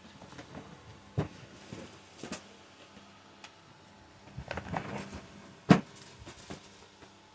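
Clear plastic saree boxes being handled and shifted: scattered light knocks and clacks with some rustling, and one sharper knock about three quarters of the way through.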